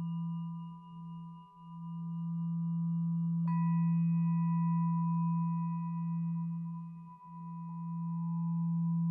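Ambient music: a steady low drone under sustained ringing tones. A new tone is struck about three and a half seconds in and rings on, and a lower tone joins near the end.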